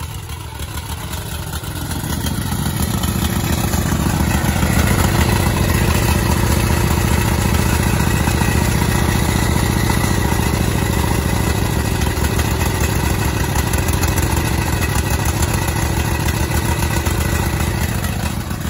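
Briggs & Stratton Intek V-twin engine on a riding mower running steadily, growing louder over the first few seconds as the microphone closes in on its exhaust muffler. It is running rich, which the owner puts down to a failed fuel-pump diaphragm that has let gasoline into the crankcase oil.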